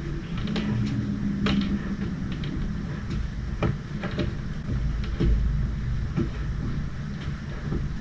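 Irregular light taps and soft thuds from a person's feet and movements on a rubber workout mat, over a steady low hum.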